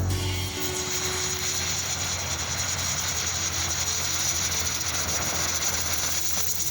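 A burning firework giving off a steady, dense crackle and hiss.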